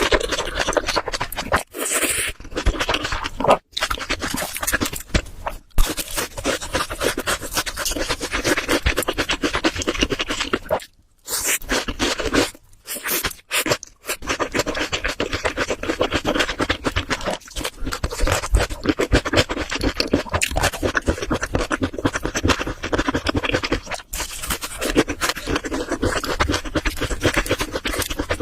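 Close-miked eating sounds: wet chewing and mouth noises over a meal of spicy pork leg curry and rice, a dense crackle of small clicks with a few brief pauses.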